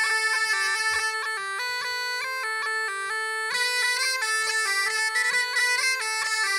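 Bagpipe playing a quick Breton dance tune, a reedy melody with fast note changes over a lower, nearly steady line.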